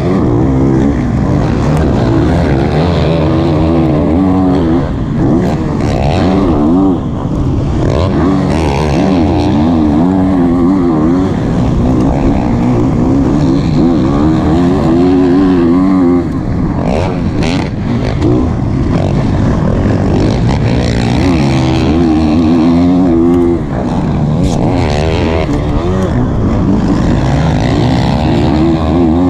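Motocross bike engine racing at high revs, heard from a helmet-mounted camera, its note rising and falling over and over as the rider accelerates, shifts and backs off through the track's corners and jumps.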